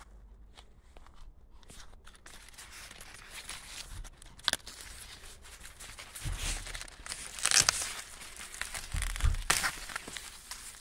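Dry maize leaves rustling and crinkling as a hand pushes through and handles the corn plants, with a few louder tearing crackles, the loudest about two-thirds of the way through.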